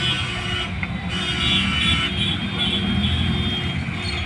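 Handheld electric marble cutter running steadily with a high-pitched whine.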